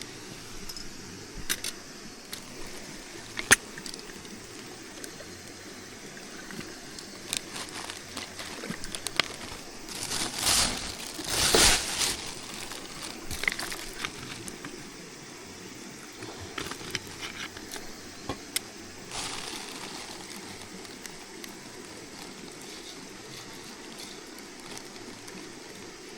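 Running water with scattered clicks and knocks, and a louder rush of water for about two seconds roughly ten seconds in.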